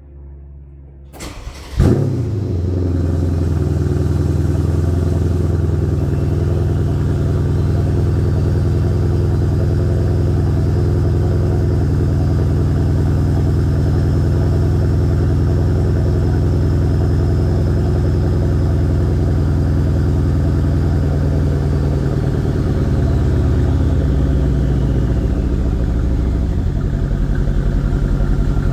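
2011 Mercedes-Benz CL63 AMG's 5.5-litre bi-turbo V8 cranking briefly and firing with a loud flare through its quad exhaust tips, then settling into a steady fast idle. About twenty-two seconds in the idle steps down lower.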